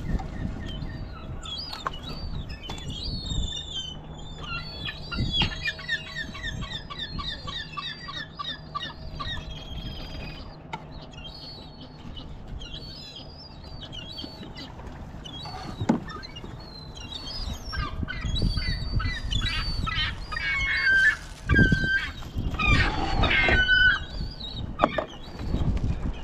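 Birds calling over and over: a run of quick repeated chirps, then louder squawking calls later on. A plastic bag crinkles near the end.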